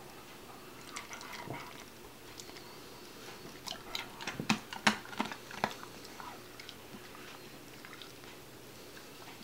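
A dog crunching a hard treat in its jaws: a quick run of sharp crunches about four seconds in, lasting around two seconds.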